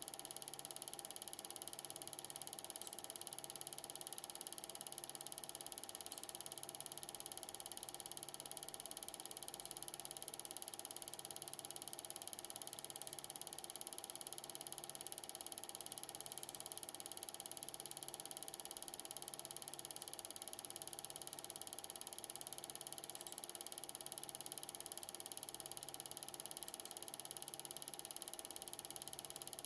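8mm film projector running: a steady mechanical whirr with a high whine and a soft low pulse about once a second.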